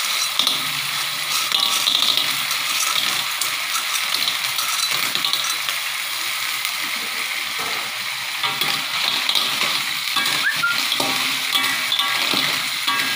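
Chilli paste sizzling in a wok as blood cockles in their shells are tipped in and clatter against the pan, then stirred with a spatula, the shells knocking and scraping.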